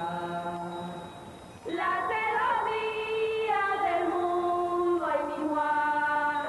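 Voices chanting a slow sung prayer in long held notes that glide from one pitch to the next, with a short break about a second and a half in.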